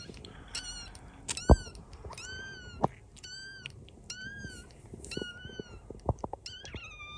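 Newborn puppy squeaking repeatedly while being fed milk from a dropper: about a dozen short, high squeals, each rising and falling, with a sharp knock about a second and a half in and a few soft clicks later on.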